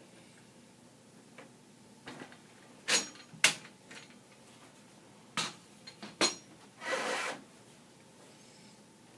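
Hard drive and drive-bay hardware of a Dell PowerEdge 840 server being handled during a drive installation: a handful of sharp clicks and knocks, then a short scrape about half a second long near the end.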